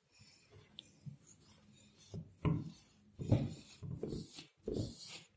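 Tissue rubbing over the metal top of a Ryzen 5 1600 CPU, wiping off old thermal paste in short, irregular strokes.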